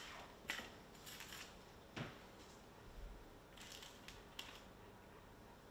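Faint handling sounds of a sandwich being made on a plate at a kitchen counter: a few light clicks and rustles, with a soft knock about two seconds in.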